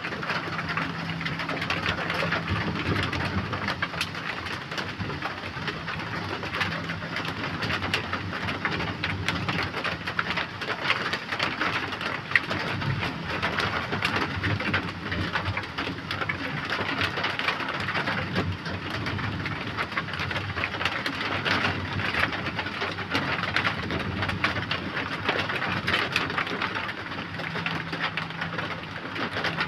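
Steady rain falling, a continuous hiss with many small ticks of individual drops landing. A faint low hum comes and goes under it.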